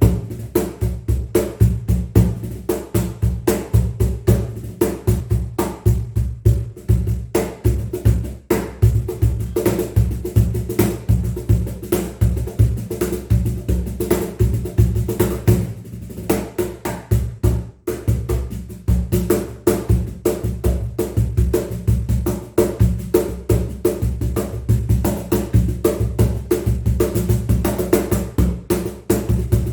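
A cajon played by hand in a steady, fast groove, mixing deep bass thumps with sharper, higher slaps, with a brief break a little past the middle.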